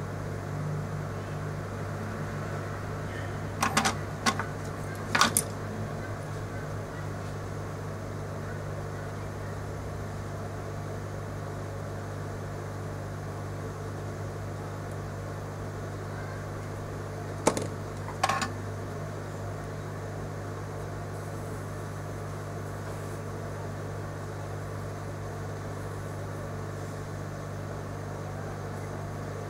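Steady low electrical hum with a few sharp clicks: three about four to five seconds in and two more around seventeen to eighteen seconds in.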